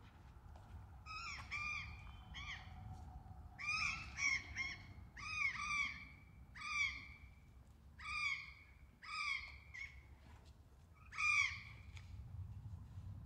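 A crow-type bird calling repeatedly: about a dozen short calls that rise and fall in pitch, mostly in twos and threes, over a steady low background rumble.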